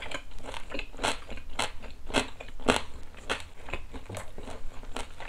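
A person chewing a mouthful of boiled pork shoulder, with wet clicking chews about twice a second; the meat is chewy.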